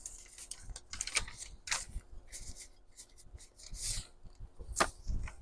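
Paper pages rustling and sliding against each other as they are handled, in irregular scrapes with a sharper stroke near the end.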